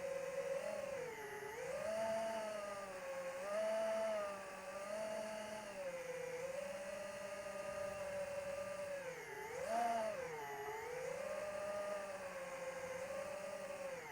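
Electric motor and propeller of an AtomRC Dolphin FPV plane whining steadily in flight. The pitch sags and climbs again every few seconds as the throttle changes, with a quick rise and drop about ten seconds in.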